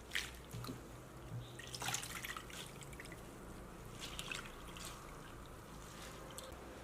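Water splashing and dripping as hands rinse sun-dried shredded bok choy stems in a basin, with a few brief splashes.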